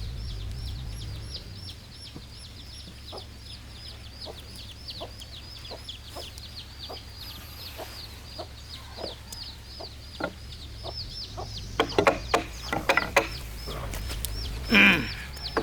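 Chickens clucking over a fast, steady high-pitched chirping. About twelve seconds in comes a run of loud, sharp knocks, and near the end a loud call falling in pitch.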